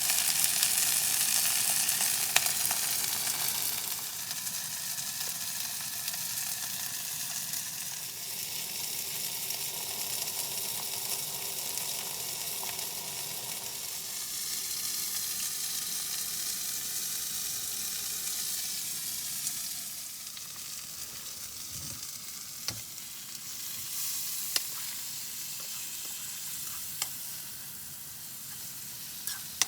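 Chopped onions, peppers and mushrooms sizzling in a frying pan for fajitas. The sizzle is loudest for the first few seconds, then settles to a steady lower sizzle, with a few sharp clicks of a utensil stirring them.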